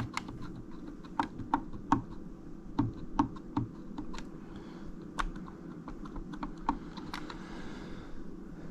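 Wall thermostat buttons being pressed over and over to raise the heat setpoint, a string of light, irregularly spaced clicks that stops about seven seconds in, over a low steady hum.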